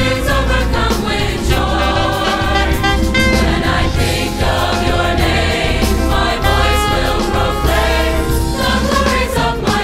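Large gospel choir singing with a live band accompanying: saxophone, piano and bass guitar.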